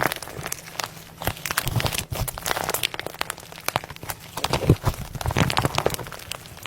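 Slime being squeezed and pressed by hand, giving a dense, irregular run of crackles and small pops.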